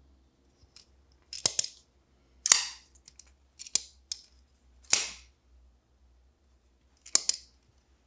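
Civivi Elementum button lock folding knife's Nitro-V blade being swung open and dropped shut, giving sharp metallic snaps as it locks and closes. There are about five snaps, spread over several seconds, and the first one is doubled.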